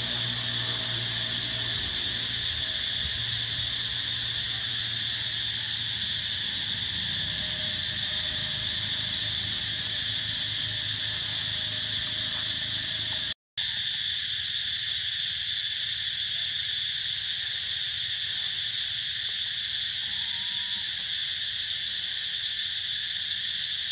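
A steady, high-pitched chorus of insects droning in the trees. It cuts out for a moment about halfway through, then carries on unchanged.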